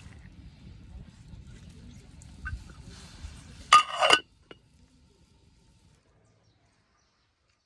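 An aluminium lid set down onto an aluminium cooking pot: a short metallic clatter with ringing, about four seconds in, over a low rumble from the pot on the wood fire. After it, near silence.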